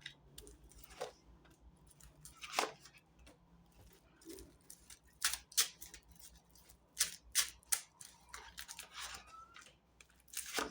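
Tarot cards being handled, with faint, scattered light clicks and snaps a second or so apart.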